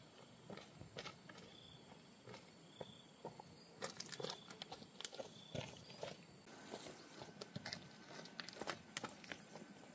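Steady high-pitched insect chorus, with many irregular light clicks and crackles from close-by handling or movement that grow busier about halfway through.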